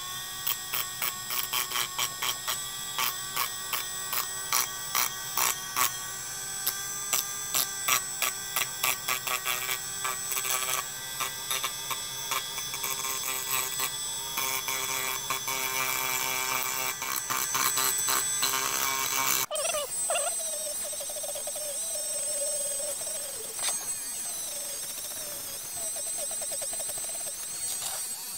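Rotary tool (Dremel) grinding the rough edges of a 3D-printed plastic part. The sanding band meets the plastic in short repeated strokes. About two-thirds through, it changes to a steadier run on a round abrasive wheel with a high steady whine.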